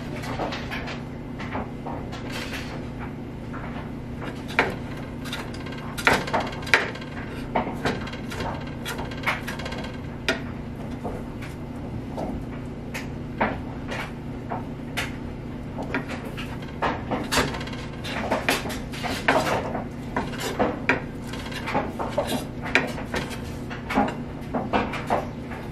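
Kitchen knife chopping cooked chicken breast on a wooden cutting board: irregular knocks of the blade on the wood, some in quick runs, over a steady low hum.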